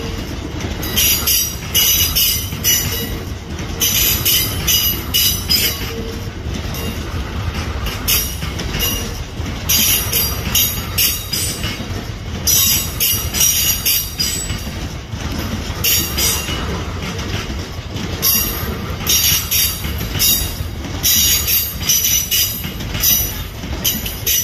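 Freight train wagons rolling past over a steady low rumble. Metallic wheel squeal and clatter come in repeated bursts every couple of seconds.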